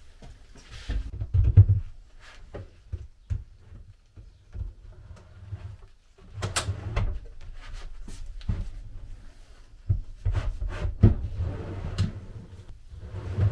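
An OSB drawer box being fitted onto freshly installed metal drawer slides and pushed in and out to test that it slides properly: wooden knocks and clicks against the cabinet and the rolling rattle of the slides, with the busiest runs about six seconds in and again near the end.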